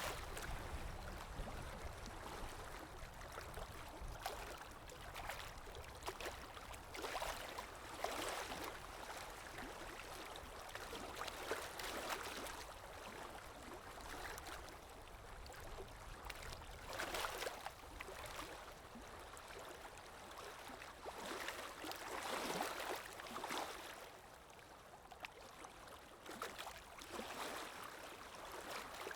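Canaries splashing in a water bath: irregular bursts of splashing and fluttering, some louder than others.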